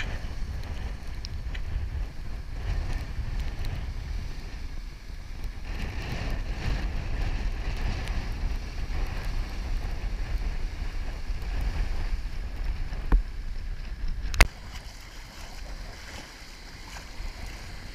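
Wind buffeting the microphone over surf breaking and washing up on rocks and a pier. Near the end come two sharp knocks about a second and a half apart, the second louder, after which the sound is quieter.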